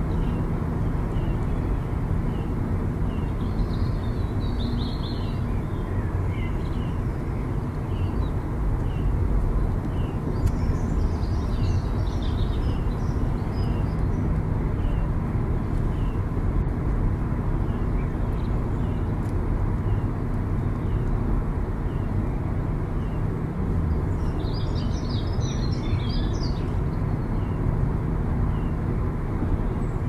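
A car driving at road speed: steady engine and tyre noise heard from inside the cabin. Above it are short high chirps about once a second and a few brief bursts of twittering.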